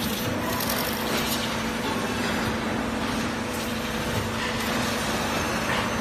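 Automatic aluminium-pot trimming and crimping machine running with a pot clamped and spinning on its spindle as the rim is trimmed: a steady mechanical hum with a constant low tone under a continuous noisy hiss.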